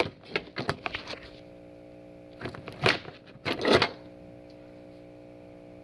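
Steady electrical hum from a running Power Jack split-phase inverter, a set of even tones that holds throughout. Over it come a quick run of clicks in the first second or so, then two short rustling, scraping spells of handling about two and a half and three and a half seconds in.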